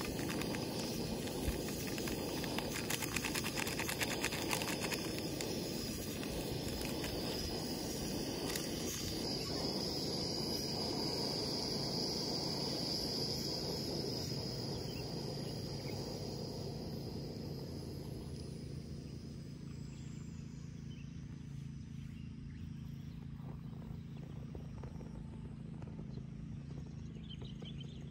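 Portable gas camping stove burning under an aluminium kettle of water coming to the boil: a steady rushing hiss that thins out and fades about two-thirds of the way through.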